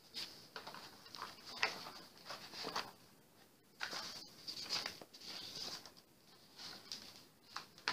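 Faint rustling and small irregular knocks and clicks of objects being handled and moved about as someone rummages for something.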